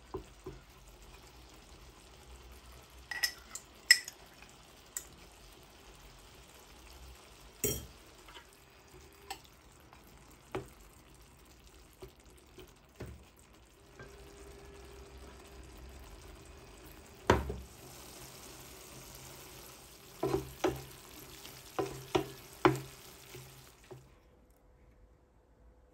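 Wooden spoon stirring minced beef and onions in a frying pan, with scattered knocks of the spoon against the pan over a faint sizzle of frying. The sound drops away near the end.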